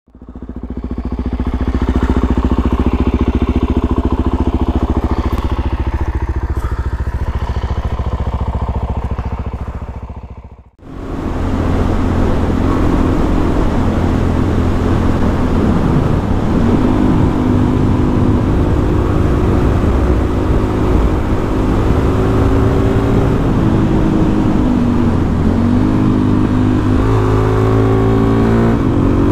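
Suzuki DR-Z400SM's single-cylinder four-stroke engine running on tall 16/38 highway gearing. It holds a steady note for about ten seconds and cuts out briefly about eleven seconds in. Then the revs rise and fall with the throttle and climb near the end.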